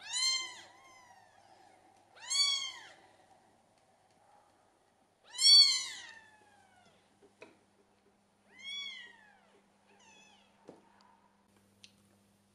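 British Shorthair cat meowing: four high calls a couple of seconds apart, each rising then falling in pitch, with the third the loudest, then a fainter fifth near the end.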